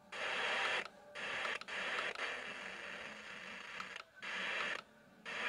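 Faint, hissy broadcast audio coming and going in stretches of about a second, each cutting off suddenly into a brief silence.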